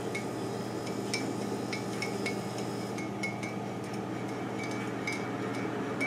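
A metal spoon clinking against a ceramic coffee mug as the coffee is stirred: light, irregular clinks, each with a short ring.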